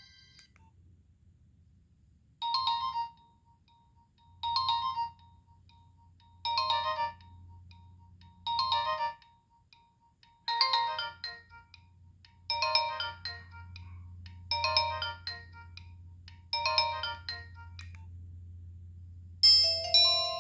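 Nokia 1209 mobile phone playing a preloaded ringtone through its small speaker: a short phrase of notes repeated about every two seconds, eight times. Near the end a different, brighter chime-like ringtone begins.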